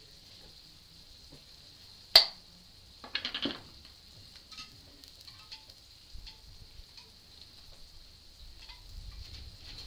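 Kitchen handling sounds: one sharp metallic click about two seconds in, then a short clattering rattle a second later, as a metal jar-lid ring is set down on the table. Light taps follow as pickle slices are laid on the burgers, over a steady high hiss.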